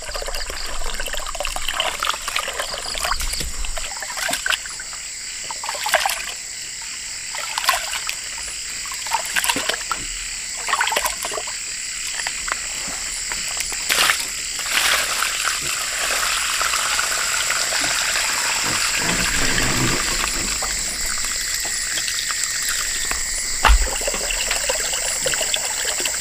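Water trickling and splashing, with irregular knocks and clatters every second or two over a steady high hiss, and one sharper knock near the end.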